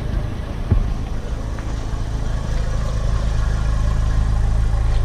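Car engine idling steadily with a low rumble. There is a single light knock just under a second in.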